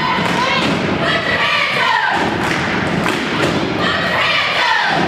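Basketball game sounds: repeated thuds of the ball and players' feet on a hardwood gym floor, echoing in the hall, with shouting over them.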